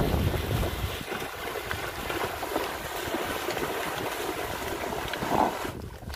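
Water buffaloes wading and splashing through shallow muddy water, with wind buffeting the microphone in the first second.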